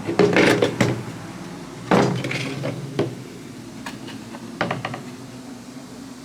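Clattering and knocking of hard objects being handled, in three short bunches with pauses between, over a steady low hum.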